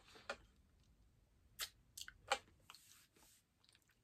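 Eating a yogurt and berry parfait: a metal spoon scraping and tapping in a plastic cup, with chewing and mouth sounds. It comes as a few short sharp sounds, the sharpest about two and a half seconds in, and stays faint.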